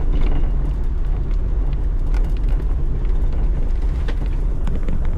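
Side-by-side UTV's engine running steadily while driving a rough trail, with scattered knocks and rattles over it.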